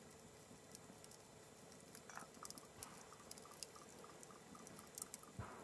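Faint crackling and ticking of a small wood campfire, with one soft low knock near the end.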